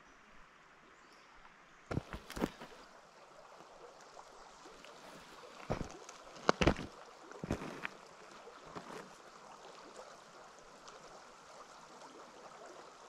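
A creek running steadily, with a few sharp knocks in two short clusters, about two seconds in and again around six to eight seconds.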